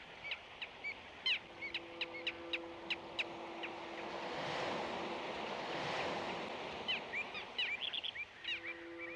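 Outdoor ambience with birds chirping in many short, quick calls. A faint steady low tone sounds for a couple of seconds early on and again near the end, and a rush of noise swells and fades in the middle.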